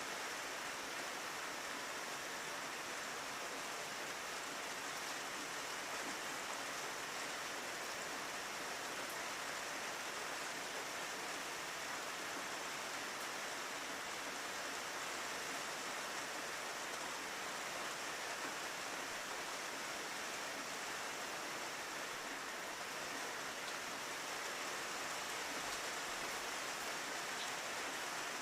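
Rain falling steadily on a window: an even, unbroken hiss.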